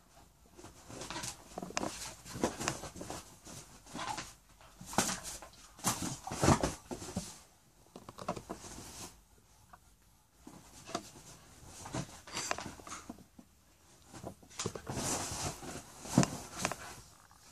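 Irregular scuffling and scrabbling of a dog's paws and claws on a leather sofa as it lunges at a rooster, in a string of short bursts with quieter gaps between them. The loudest bursts come about six and a half seconds in and near the end.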